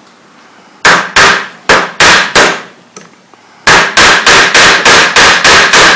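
Ball-peen hammer striking a steel pin used as a punch to drive a flared pin out of an AR-15's A2 front sight base: five sharp metallic blows, a pause of about a second, then a quicker run of about nine blows, each one ringing.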